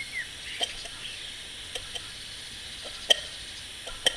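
A few isolated sharp clicks over a faint steady hiss, with a brief squeaky chirp right at the start.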